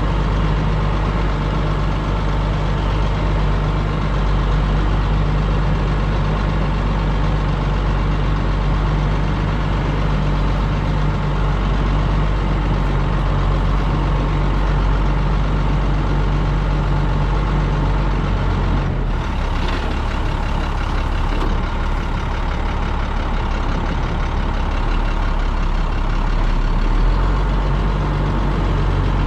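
Heavy farm engine running steadily at idle, its low note shifting about two-thirds of the way through and settling back near the end.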